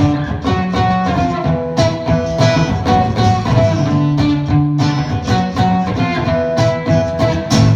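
A live band playing the instrumental intro to a song: strummed guitar chords keeping a steady beat, with held melody notes over them.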